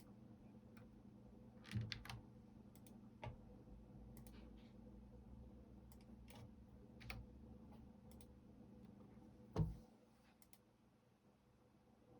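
Computer keyboard keys pressed now and then, not in a steady run: a dozen or so faint, irregular clicks, with a few louder presses around 2 s and one heavier key press with a low thump a little before 10 s. A faint steady hum lies underneath.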